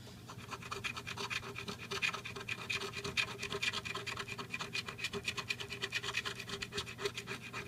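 Scratch-off lottery ticket being scratched, the coating scraped off the winning-numbers panel in a fast, continuous run of short strokes, several a second. A faint steady hum sits underneath.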